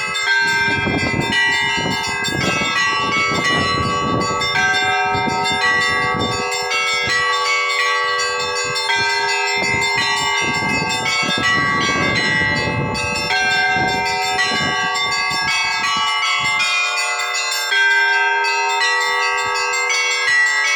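Orthodox monastery church bells ringing: several bells of different pitch struck again and again, their tones overlapping in a continuous peal.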